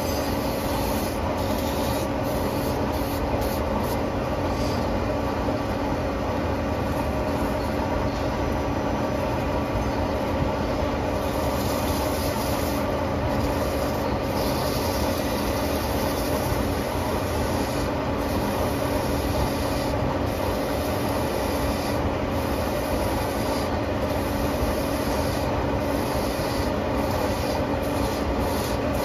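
Okuma CNC turret lathe spindle running at a steady speed, a continuous hum with a steady tone, while sandpaper is held against the spinning suppressor cap to polish out machine lines.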